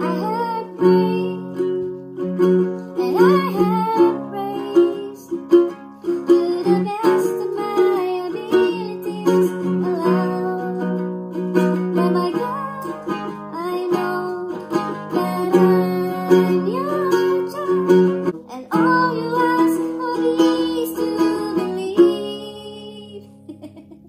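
Nylon-string classical guitar strummed in steady chords, with a praise song sung over it in a high, chipmunk-like voice. The singing stops about two seconds before the end and the guitar fades out.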